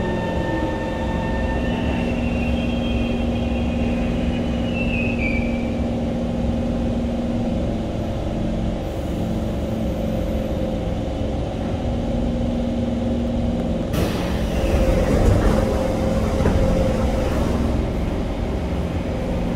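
Interior running noise of a Kawasaki C151 metro train: a steady rumble and hum with whining tones from the traction equipment, some high tones gliding down about four seconds in. A louder rushing noise joins about fourteen seconds in.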